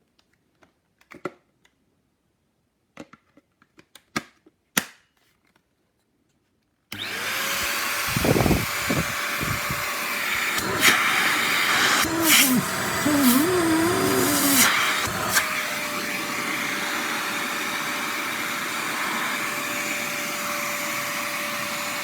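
Scattered clicks and knocks for about seven seconds. Then a bagless stick vacuum cleaner switches on abruptly and runs with a steady rushing whine. For several seconds after it starts, the pitch wobbles and there are loud surges, and then it runs evenly.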